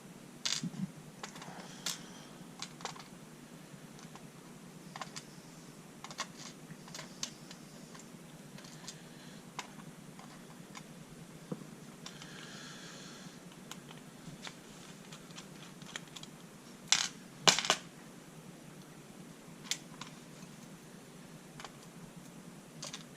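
Lock picking tools working a Medeco Biaxial lock cylinder: faint, scattered metallic clicks and ticks, with a short scraping rustle a little past halfway and a few louder clicks about three-quarters of the way through.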